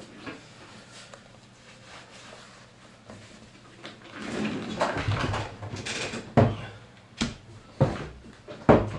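A person settling in at a computer desk: quiet shuffling, then louder rustling and shifting as he sits down about four seconds in, followed by four sharp knocks or thumps near the end.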